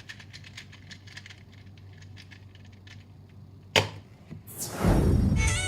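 Quick light clicking of a 2x2 speedcube's layers being turned, then a sharp snap about four seconds in. Near the end a loud downward whoosh sweeps in and leads into music.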